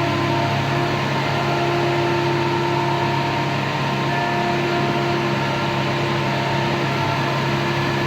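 Tractor engine idling steadily, an unchanging drone with no change in speed.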